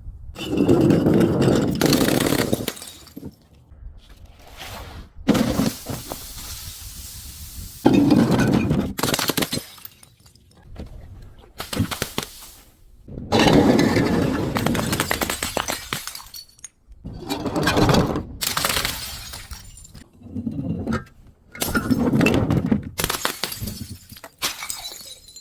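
Glass breaking and crunching as it is crushed, in a series of separate smashes a second or two long with short pauses between them.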